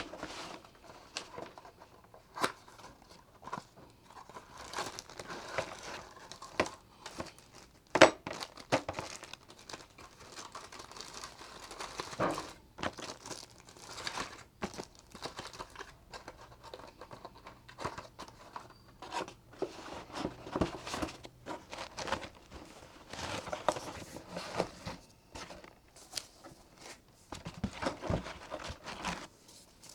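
Packaging being handled: crinkling and tearing, with irregular knocks and clicks.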